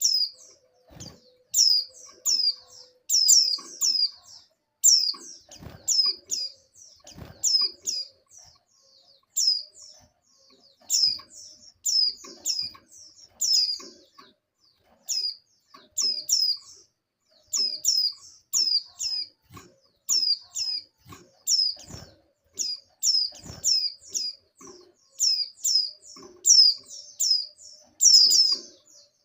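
Female white-eye (pleci) in breeding condition giving its mating call to males: short, high, downward-sweeping chirps in quick clusters of two to four, repeated over and over with brief pauses. A few faint low thumps sound now and then.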